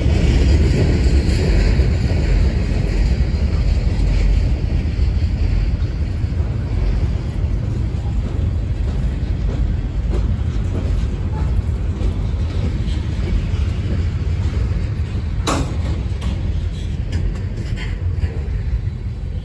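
Freight train tank cars and covered hoppers rolling past, a steady low rumble of steel wheels on rail that slowly gets quieter. One sharp click about 15 seconds in.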